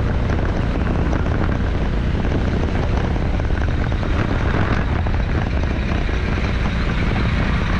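Steady rumble of a moving road vehicle, mixed with low wind buffeting on the microphone.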